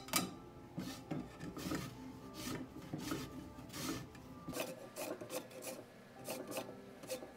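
A lemon being zested on a fine rasp grater held across a saucepan: repeated short scraping strokes, about two a second.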